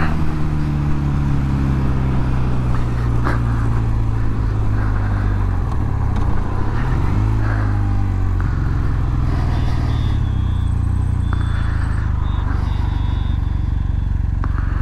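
Motorcycle engine running while the bike slows in traffic, its pitch falling, then rising briefly about seven seconds in before settling at a steady lower speed, with wind and road noise throughout.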